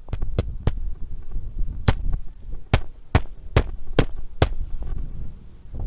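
Hammer driving roofing nails into a shingle: a few light taps, then about six hard blows in a quick even run, with wind rumble on the microphone.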